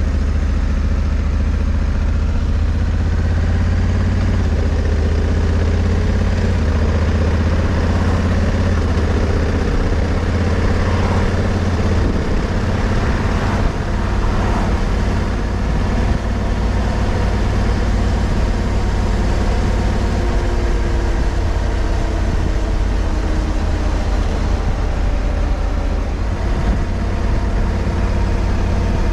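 Honda Africa Twin CRF1100L's parallel-twin engine running steadily under way, heard from on the bike, with a constant rush of wind and road noise.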